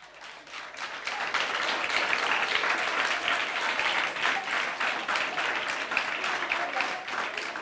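Studio audience applauding, building up over the first second and then clapping steadily.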